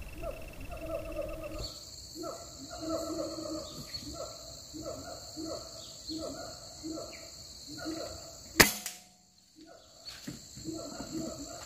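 A single sharp air rifle shot a little past two-thirds of the way through. Around it, a steady high insect buzz and repeated short falling animal calls about twice a second.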